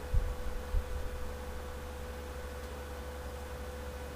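Steady low rumble of a car driving, heard from inside the cabin, with a steady hum at one pitch over it. Two low thumps come in the first second.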